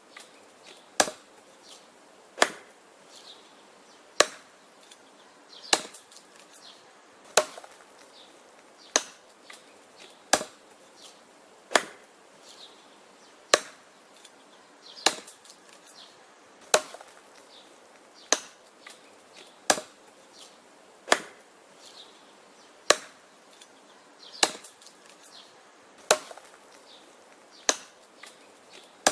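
An axe chopping wood: a steady run of sharp, woody strikes, about one every second and a half.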